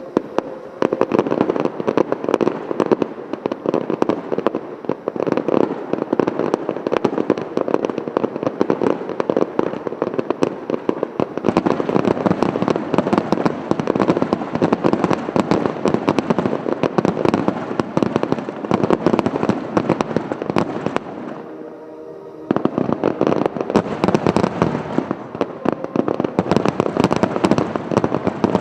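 Dense barrage of aerial fireworks: continuous overlapping bangs and crackling from many shells. There is a brief lull about 22 seconds in, then it resumes just as thick.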